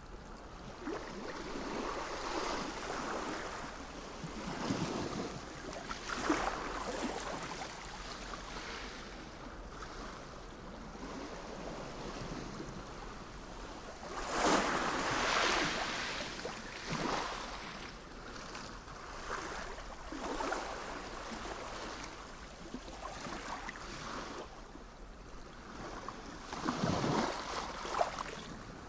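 Sea surf: a continuous hiss of water with waves surging and washing in every few seconds, the biggest about halfway through and another near the end.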